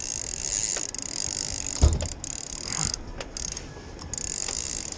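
Fishing reel's drag screaming as a hooked white sturgeon runs and strips line, a steady high buzz that drops out briefly between about three and four seconds in. A short low thump comes about two seconds in.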